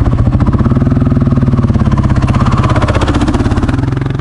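Dual-sport motorcycle engine running steadily close by at low speed, with a fast, even pulse; the pitch lifts slightly and settles, and the sound begins to fade near the end.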